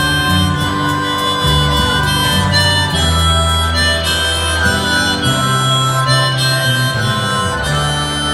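Harmonica playing a slow, held melody with bent notes over a live rock band's bass, keyboards and steady drums.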